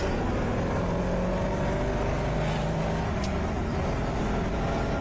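A muscle car's V8 engine running at a steady, even note.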